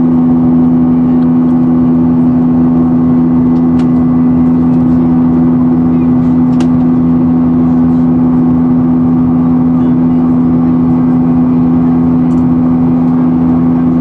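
Steady drone of a Boeing 737-800's CFM56-7B turbofan engines, heard inside the cabin, with a strong low hum from the engines under the rush of airflow. Two faint clicks, about 4 and 6.5 seconds in.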